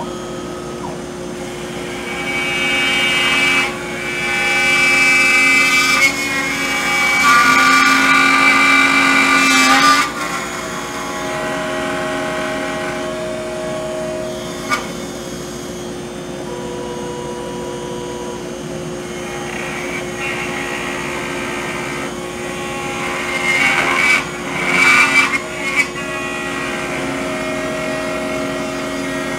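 CNC trim router spinning a 1/4-inch roughing end mill at a steady pitch while it mills a 3/4-inch-deep pocket in sinker mahogany at 80 inches per minute. The cutting noise gets louder and rougher for several seconds after about two seconds in, and again in short bursts near the end.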